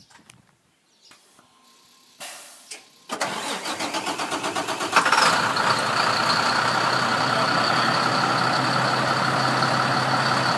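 An engine, most likely the flatbed truck's, cranking with a fast even starter chatter for about two seconds, then catching and running steadily at idle with a high whine over a low hum.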